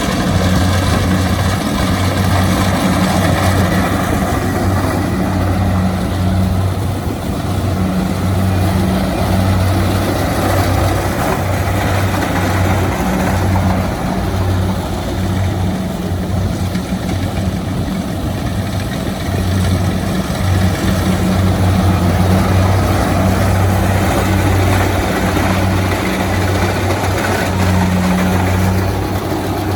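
Kubota DC-70 Plus combine harvester running steadily while harvesting rice: a loud, even diesel engine hum with the machinery's noise over it.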